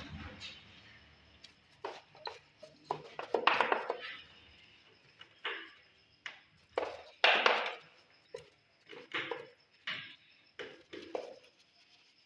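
Irregular workshop clatter and scraping, a string of short knocks and rubs, from motorcycle air filter parts being handled and cleaned with petrol. The loudest come about three and a half and seven seconds in.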